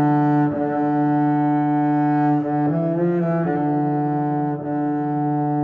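Background music: slow, held low notes with a string-like sound, changing pitch a few times.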